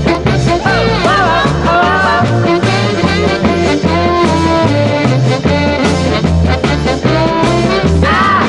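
Background music: an upbeat early-1960s rock and roll song in an instrumental stretch, horns playing over a stepping bass line.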